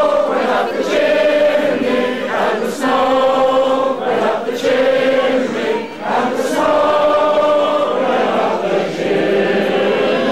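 A group of voices singing together, in long held notes with short breaks between phrases.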